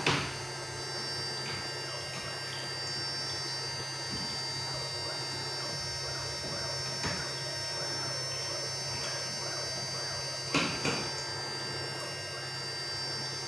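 Small CNC router running with its 800 W spindle on an inverter: a steady hum with a constant high whine. A few sharp knocks cut in, at the very start and about ten and a half seconds in.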